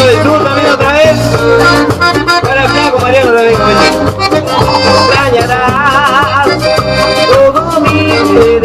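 Live cumbia band playing an instrumental passage: accordion-like lead melody with vibrato over bass, percussion and shakers.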